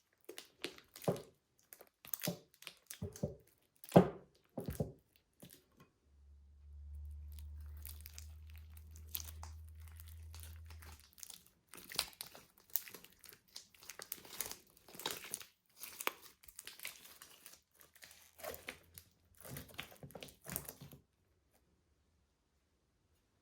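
Slime being worked by hand, giving irregular crackling, popping clicks. A low steady hum comes in for about five seconds midway, and the crackling stops a couple of seconds before the end.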